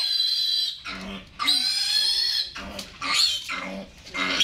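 Piglet squealing while held and handled: long, shrill squeals, about four in a row with short breaks between them.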